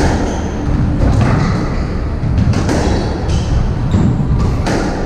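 Squash rally: the ball smacked by rackets and slamming off the court walls, a string of sharp cracks about a second apart, over the thud of players running on the wooden floor.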